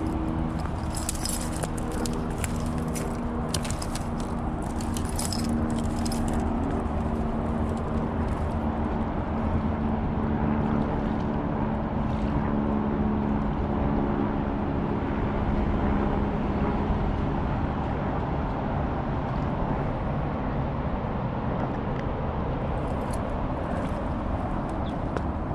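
Steady road traffic noise with a vehicle's engine hum that slowly drops in pitch and fades out about two-thirds of the way through. Light clicking and rattling comes and goes during the first six seconds.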